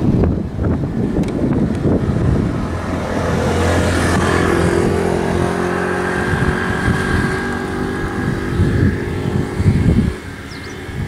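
Wind buffeting the microphone, with the steady hum of an approaching train on the electrified line through the middle seconds. A short high bird chirp comes near the end.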